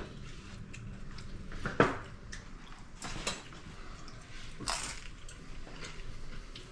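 Tortilla chips crunching as they are bitten and chewed: a few sharp, scattered crunches, the loudest about two seconds in.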